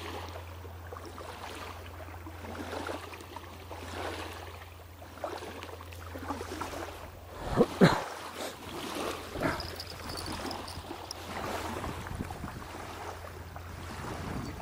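Outdoor water and wind noise at a riverbank, with scattered knocks and rustles from close by. The loudest is a cluster of sharp knocks about eight seconds in, and a smaller one follows a second and a half later.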